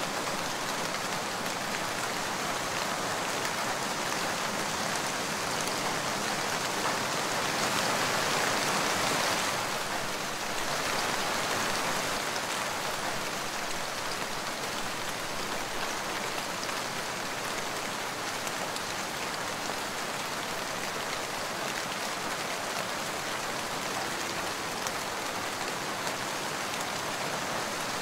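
Steady rain falling on a hard surface, a dubbed-in rain sound track, swelling slightly louder for a few seconds about a third of the way in.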